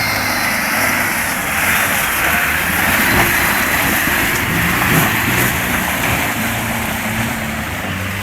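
Off-road 4x4's engine running, with a loud, steady rushing noise over it.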